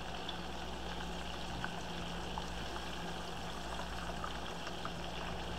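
Floured, thinly sliced chicken breasts frying in hot vegetable oil in a skillet: a steady sizzle with scattered small pops.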